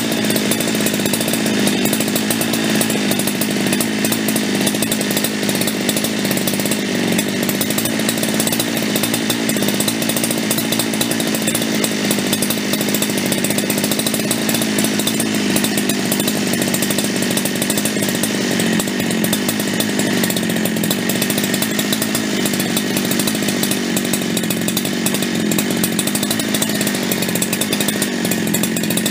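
Husqvarna 372XP X-Torq two-stroke chainsaw engine running at full throttle with no load, holding one steady high pitch with no rise or fall. The saw is being tuned to its no-load top speed, about 13,000 rpm, with an inductance tachometer.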